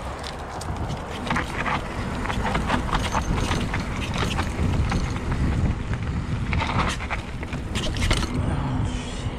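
Mountain bike rolling fast down a dirt trail: wind buffeting the microphone, with frequent clicks and rattles from the bike and its tyres over the rough ground. Near the end a steady low hum comes in as the tyres reach pavement.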